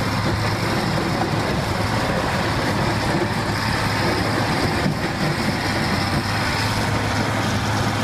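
Caterpillar 12G motor grader's diesel engine running steadily as the machine blades along the dirt road surface.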